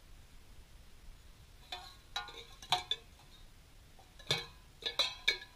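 Empty tin cans on a rope knocking against each other, a string of sharp metallic clinks and clanks with a short ring, starting about a second and a half in and coming in two clusters.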